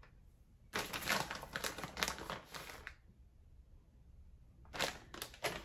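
Plastic bag of shredded cheese crinkling as it is handled, in two spells: a longer one about a second in and a shorter one near the end.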